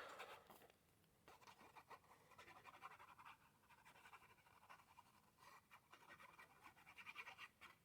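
Faint rustling and rubbing of paper handled and pressed into place by hand, with small irregular scratches and ticks.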